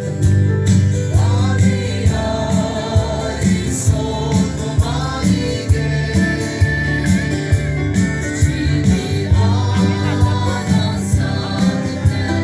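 Live band music, amplified: a voice singing over guitars, a heavy bass and a steady drum beat.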